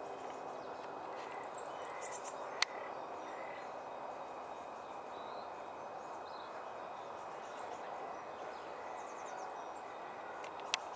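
Steady outdoor background noise with scattered short, high bird calls, and a sharp click about two and a half seconds in and another near the end.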